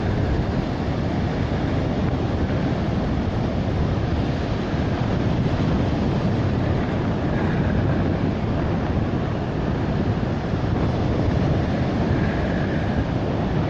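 Ocean surf breaking and washing up the beach, mixed with a steady low rumble of wind buffeting the microphone; the hiss of the wash swells twice.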